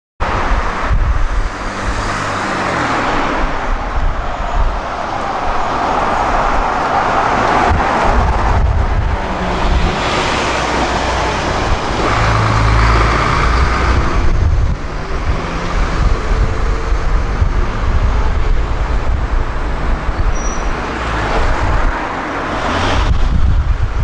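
Solaris city bus driving past in street traffic: engine and tyre noise growing as it approaches, then fading as it pulls away. Wind rumbles on the unshielded microphone throughout.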